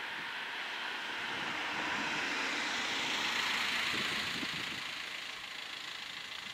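A car, an Audi hatchback, drives past close by. Its tyre and engine noise swells to a peak midway, then fades as it brakes toward the lowered crossing gates.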